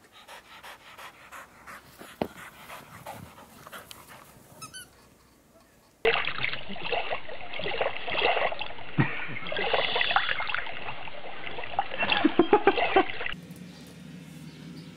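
Dogs panting and breathing, with a louder stretch lasting several seconds in the middle.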